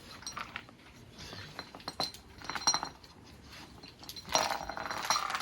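Heavy steel bulldozer chain clinking and rattling as the dog moves on it, metal links striking with a short ring: a few clinks about half a second in, more around two and two and a half seconds, and a longer, louder rattle near the end.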